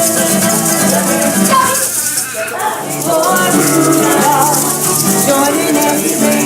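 Music played on plucked strings, with a shaker or rattle keeping a steady, busy rhythm throughout.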